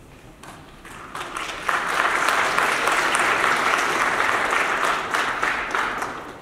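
Audience applauding, swelling over the first couple of seconds and dying away near the end.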